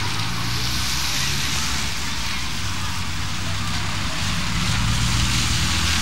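Small engine running steadily with a low hum, over a hiss of street and crowd noise; it gets a little louder near the end.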